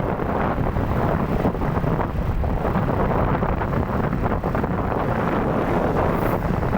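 Wind buffeting the microphone: a loud, steady, rumbling rush with no pauses.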